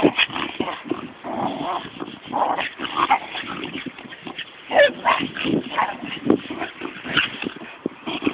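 Two Tibetan terriers playing rough, giving short high-pitched cries several times amid many quick clicks and knocks.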